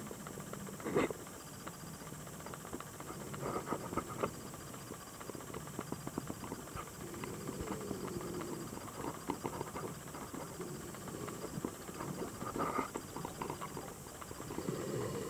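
Underwater sound in shallow sea water: irregular clicks and knocks over a steady wash of water noise, with a faint steady high whine throughout.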